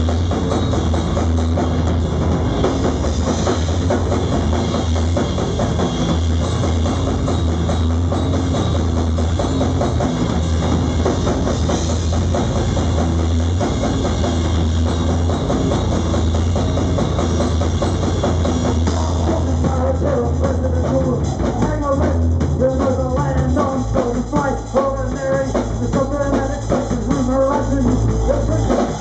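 Live rock band playing, drum kit and electric guitar together, with a voice singing over them from about twenty seconds in.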